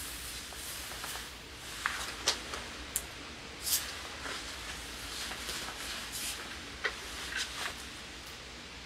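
Rustling of clothing and body movement, with scattered small clicks and brief hissy rustles over a steady low room noise.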